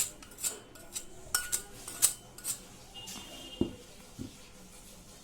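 A spoon clinking against a bowl as rice flour is spooned in: a run of light clicks about twice a second, then a couple of duller knocks near the end.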